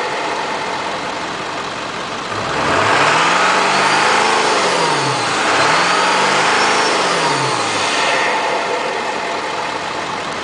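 Ford 7.3 L Powerstroke V8 turbodiesel idling, then revved twice to about 3000 rpm, a few seconds apart. The turbo with its Wicked Wheel compressor wheel whistles, rising as it spools up and falling as the engine drops back to idle each time.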